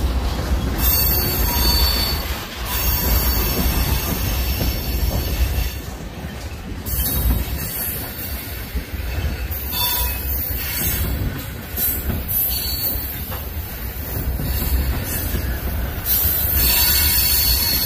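Tank cars of a freight train rolling past, their steel wheels squealing on and off over a steady low rumble, the squeal strongest near the end.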